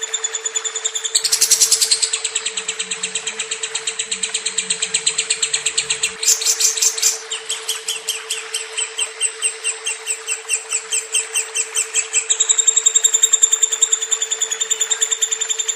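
Lovebird chattering in one long unbroken run of fast, high chirps, about seven a second, its pattern shifting a few times, over a steady low hum.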